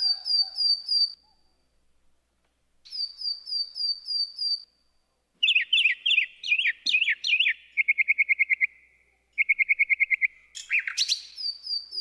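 Recorded birdsong playing as the opening of the dance's music track. It comes as runs of quick, repeated high chirps, then falling chirps and fast trills, broken by short pauses.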